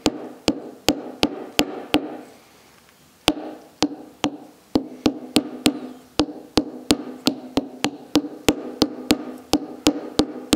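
Soft-faced plastic mallet tapping a wheel bearing seal into a Classic Mini front hub upright: light, even taps about three a second, each ringing briefly off the metal housing, with a short pause about two seconds in.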